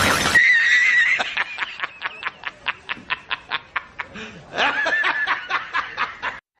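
High-pitched snickering laugh, as an edited-in comedy sound effect. It opens with a wavering squeal, then runs into a long string of quick giggles, about six a second. A second squeal and giggle run comes about two-thirds of the way in, and it cuts off suddenly near the end.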